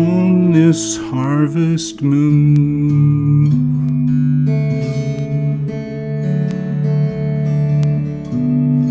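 Electric Weissenborn-style lap slide guitar, a Richard Wilson build with Seymour Duncan '59 pickups, played with a slide bar. In the first two seconds the notes glide with wavy slide vibrato, then sustained slide chords ring.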